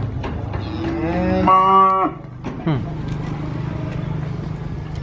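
A cow moos once, about a second in: a long call that rises and holds, then drops away in a falling tail. Behind it run a steady low hum and scattered knocks.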